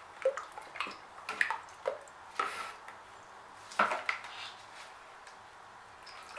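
Stirring stick knocking and scraping against the sides of a paint bucket while thick white acrylic house paint is stirred: a string of short, sharp taps, the loudest about four seconds in, then quieter handling.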